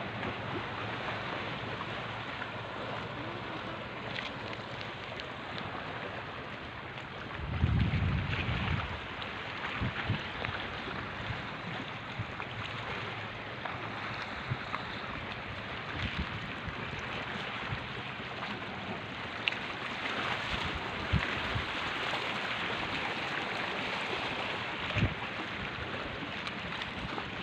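Shoreline wind and water noise, steady throughout. About eight seconds in, a gust buffets the microphone with a low rumble, and there are a few faint scattered clicks.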